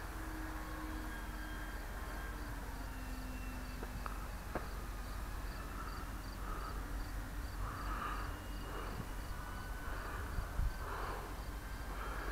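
Faint whine of an electric RC warbird's motor and propeller as it flies high overhead, its pitch gliding slowly as it manoeuvres, over a low rumble of wind on the microphone.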